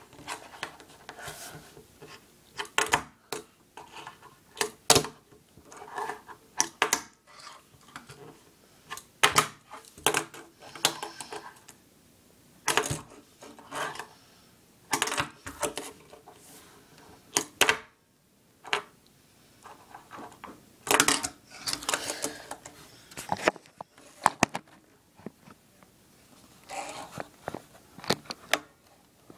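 Tech Deck fingerboard being flipped and landed on a wooden table by fingers: irregular sharp clacks as the little board pops and lands, with short scrapes in between.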